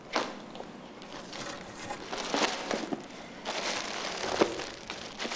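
Clear cellophane wrapping on a bouquet of roses crinkling as it is handled, preceded just after the start by a short knock as folders are set down on a desk.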